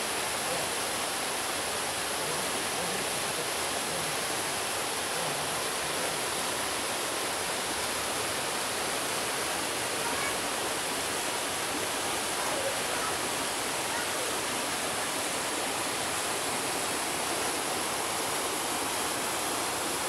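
Small waterfall pouring into a rock pool: a steady, even rush of falling water that does not change.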